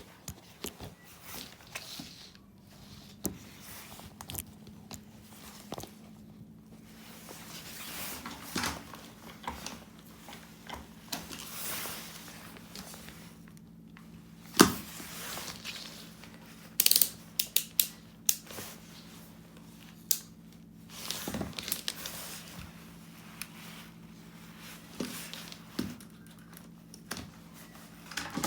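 Irregular handling noises: scattered clicks, knocks and crinkling, the sharpest knock about halfway through, over a faint steady low hum.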